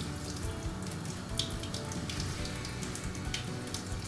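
Kitchen tap running into a stainless steel sink, the stream splashing over hands and fish as salt-cured mackerel fillets are rinsed under cold water to wash off the excess salt.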